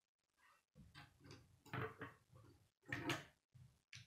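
Plastic K'nex pieces clicking and knocking as the model is picked up, turned and handled and a wheel is fitted to its axle, with a few irregular knocks against the wooden tabletop.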